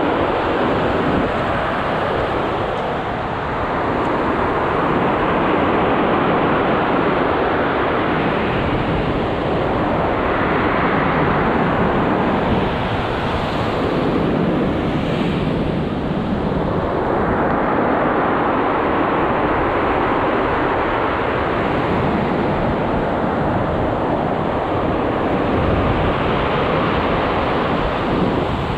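Heavy surf breaking and washing up a pebble beach, a loud continuous rush that swells and eases as each wave comes in.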